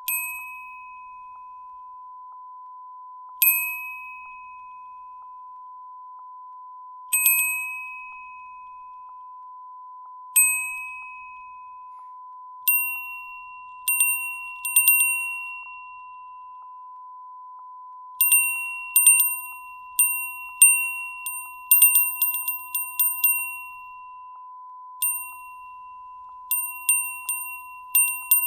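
Japanese wind chime (fūrin) ringing irregularly in a breeze. At first come single clear tings a few seconds apart, each with a short ring-out; from about halfway through, quicker overlapping tings follow in clusters. A steady beep tone runs underneath as a sample watermark.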